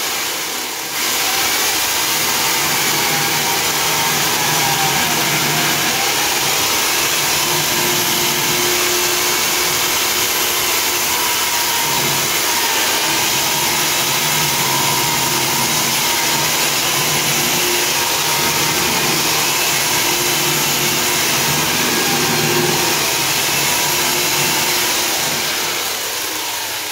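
Hand-held diamond chain saw running steadily under load as its chain cuts into a concrete wall. It dips briefly about a second in, then holds an even pitch, and eases off a little near the end.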